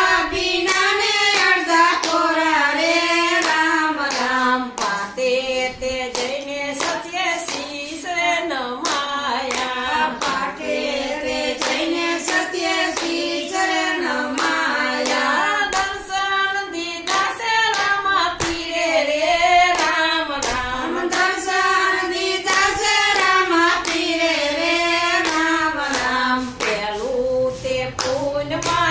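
A group of women singing a Gujarati devotional bhajan in unison without instruments, with steady hand clapping keeping time.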